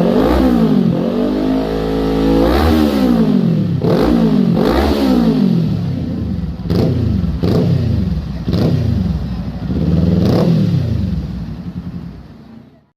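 Kawasaki Z400 parallel-twin engine revved through a Villain carbon aftermarket exhaust: a series of sharp throttle blips, each rising and falling in pitch, with one longer held rev about a second in. The sound fades away near the end.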